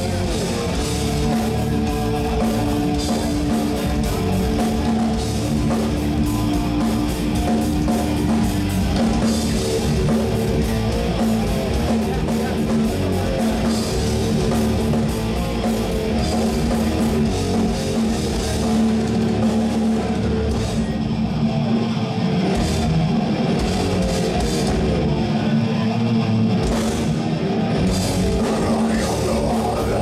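Heavy rock band playing live: electric guitars holding steady chords over a continuously beating drum kit.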